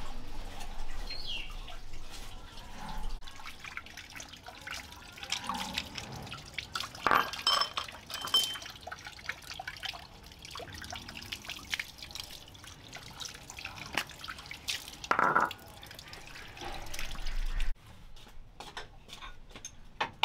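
Water splashing and dripping onto a concrete floor as someone washes by hand, with scattered small knocks and clicks.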